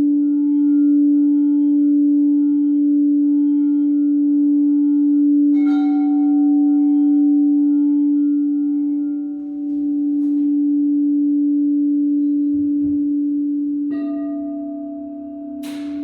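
Singing bowls ringing: a strong, steady low hum with softly pulsing overtones. Another bowl is struck about six seconds in and again about fourteen seconds in, each time adding a higher ringing tone. A short sharp strike comes near the end.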